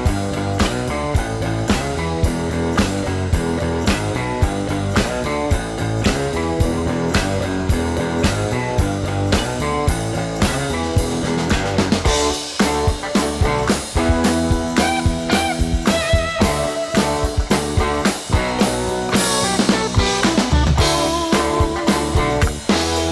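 Background rock music with a steady drum beat. About halfway through, the arrangement changes and a lead line with bending notes comes in.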